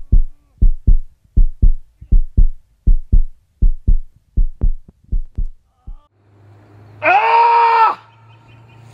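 Heartbeat sound effect of low double thumps, a little under one beat a second, growing fainter and stopping about six seconds in. A low hum follows, then, about seven seconds in, a loud drawn-out cry that rises and falls in pitch for about a second; another starts at the very end.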